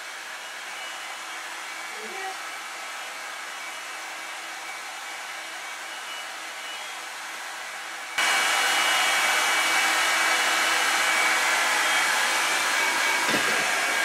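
Revlon One-Step hair dryer and volumizer hot-air brush blowing through hair: a steady rush of air over a faint motor hum. About eight seconds in it suddenly gets louder and brighter.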